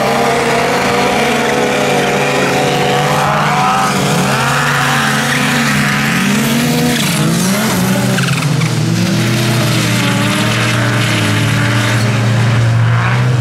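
Several snowmobile engines at full throttle as a group races up the hill, their pitches weaving up and down over one another above a steady low drone.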